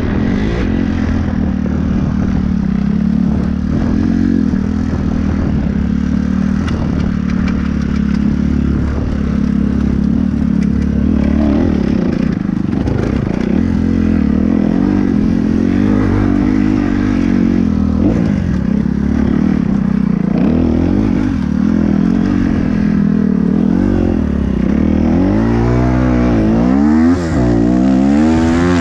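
Kawasaki 250cc dirt bike engine running hard under the rider, the revs rising and falling with throttle and gear changes. Near the end the revs swing up and down sharply, with a brief drop about two seconds before the end.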